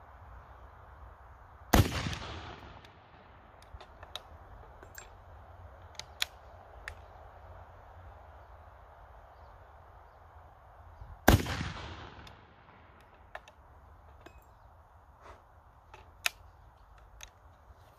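Two black-powder rifle shots from a Snider short rifle, about nine and a half seconds apart, the first a couple of seconds in; each crack is followed by an echo that dies away over about a second. They are fireforming shots, fired with .58 Minié bullets to form the cases to the chamber.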